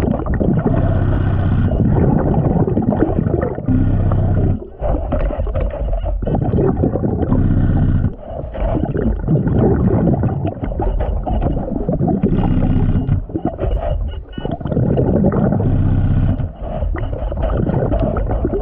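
A diver breathing underwater through a BLU3 Nemo hookah diving system: repeated breath cycles of loud rushing air and exhaled bubbles, one to three seconds each, with short breaks between them.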